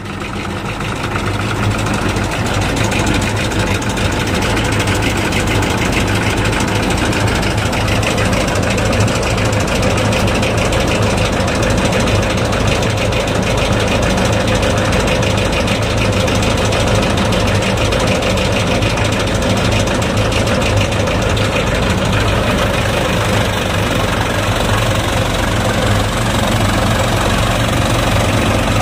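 Farmtrac tractor's diesel engine running a mounted paddy thresher under load, the engine's steady beat under the whirring of the threshing drum as straw is fed in. It builds up over the first couple of seconds, then runs steadily.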